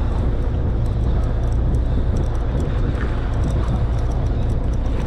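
Steady low rumble of a small boat and wind on open sea, with faint scattered ticks over it.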